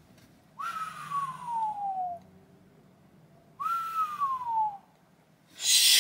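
A person whistles two long falling whistles of admiration, each starting with a quick rise and then sliding slowly down in pitch, with breath audible behind the tone. Near the end comes a short, loud hiss of breath.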